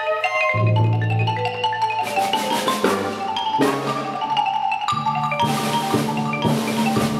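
Solo marimba played with mallets in fast runs of notes, over sustained low orchestral notes that come in about half a second in. Several sharp accented hits fall along the way.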